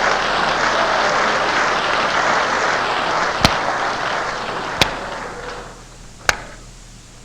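Congregation applauding, dying away over about six seconds, with a few loud, sharp single hits standing out about a second and a half apart.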